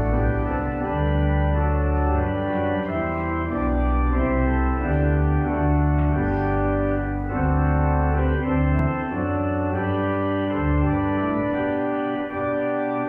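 Church organ playing a hymn: full held chords over low bass notes that change every second or so.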